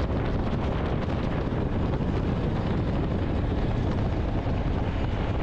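Steady road and wind noise of a car driving at highway speed, heard from inside the cabin.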